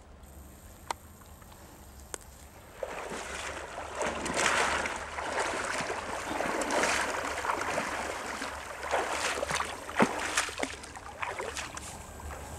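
Water sloshing and splashing, starting about three seconds in and going on unevenly, with a few sharp knocks.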